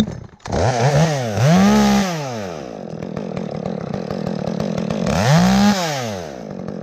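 Chainsaw revving up and falling back about a second in and again near the end, running steadily at speed in between.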